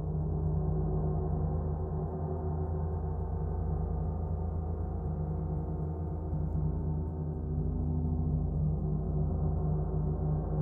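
Earth and Moon planet gongs ringing together in a long, steady wash of overlapping deep tones and shimmering overtones, with no fresh strike heard.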